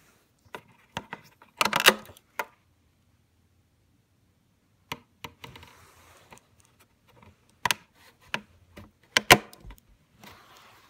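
Irregular sharp clicks and knocks of hard objects being handled, with the loudest cluster about two seconds in and another near the end.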